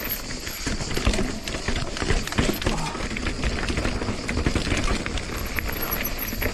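Mountain bike rattling and clattering over rocky ground on a downhill run, tyres knocking on stones in a dense, irregular string of impacts.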